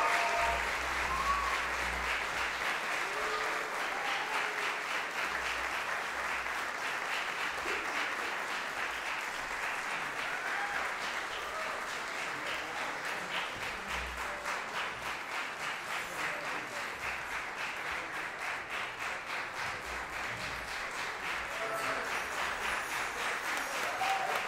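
Concert audience applauding in a hall, a steady sustained clapping.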